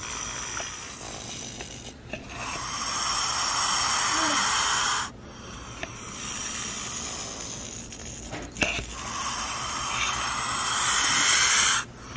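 A snake hissing: several long, breathy hisses of a few seconds each, with short pauses between them.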